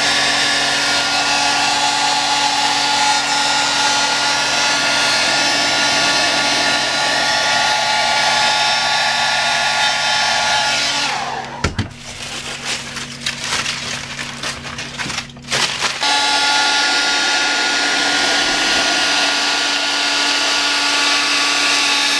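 A hand-held electric hair dryer blowing steadily, a motor hum under the rush of air. About eleven seconds in it is switched off and winds down with a falling whine; after a few seconds of light clicks and handling noise it comes back on suddenly about sixteen seconds in.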